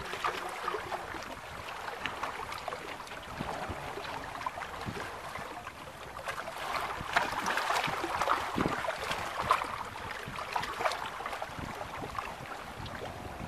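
Small waves lapping and slapping against a boat's hull, a continuous splashy wash dotted with little clicks, louder for a few seconds in the middle, with wind buffeting the microphone.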